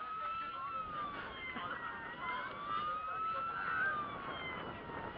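Wailing siren of a model boat, its pitch rising and falling in a slow repeating cycle of about two and a half seconds.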